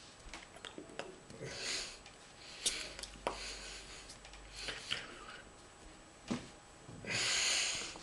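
Close-up rubbing and hissing noises with a few sharp clicks, the longest and loudest burst of rubbing near the end.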